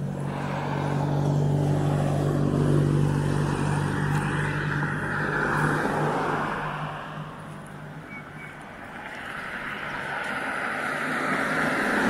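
Road traffic: a vehicle engine hums steadily and fades out about halfway through, while cars pass twice, once swelling about four seconds in and again near the end.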